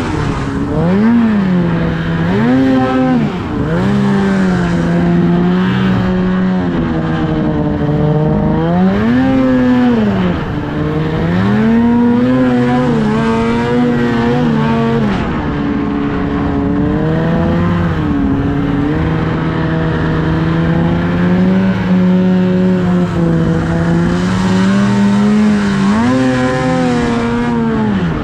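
Ski-Doo snowmobile engine running under load, revving up and easing off again and again, with steadier stretches of cruising in between.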